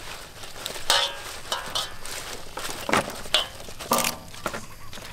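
Fresh leafy greens being handled and pressed into a large stainless-steel bowl of raw vegetables and fish: leaves rustling, with a few sharp knocks about a second, three seconds and four seconds in.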